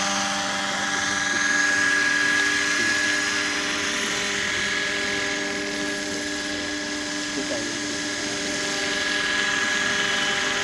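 Radio-controlled scale model helicopter flying low: the steady high whine of its drive running under the rotor's hum, holding an even pitch throughout.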